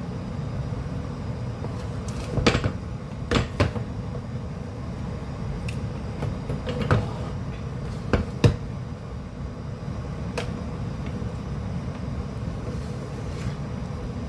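A cooking utensil stirring thick, sticky calamay in a pot, knocking against the pan now and then, about seven sharp knocks, over a steady low rumble.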